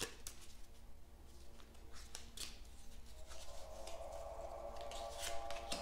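Tarot cards handled and fanned out by hand: a scattering of short, crisp card clicks and snaps. Faint background music comes in about three seconds in.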